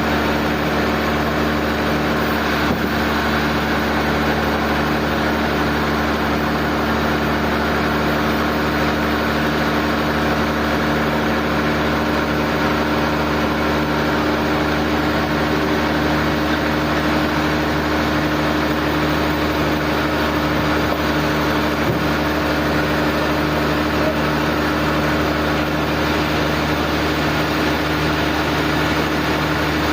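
Sawmill machinery running steadily, a constant engine-like hum with no cutting strokes or changes.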